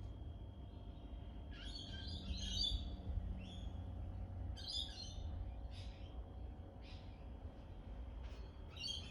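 Birds chirping in short high bursts every second or so, over a steady low background rumble.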